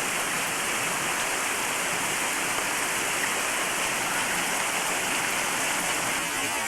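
Torrential typhoon rain pouring down in a steady, dense hiss.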